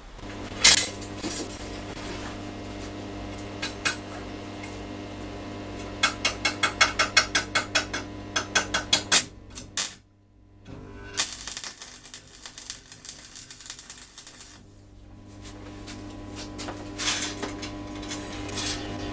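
Electric arc welding on steel rod: the welder hums steadily under bursts of crackling arc noise, with a run of quick sharp ticks partway through. The sound cuts out for a moment about halfway.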